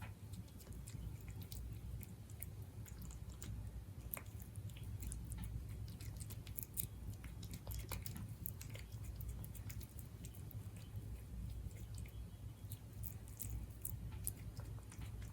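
Siberian cat chewing its food, a run of small irregular clicks and smacks over a low steady hum.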